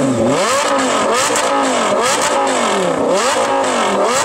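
Lamborghini Gallardo LP560-4's 5.2-litre V10 revved repeatedly while stationary through an Armytrix valvetronic exhaust with the valves open. The revs rise and fall in quick blips, about one a second.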